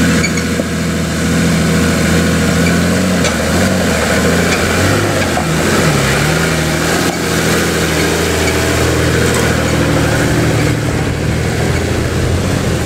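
Nissan GU Patrol's TD42T turbo-diesel straight-six running at low revs while the 4WD crawls over a rocky track, its pitch rising and falling with the throttle and dipping about five to six seconds in.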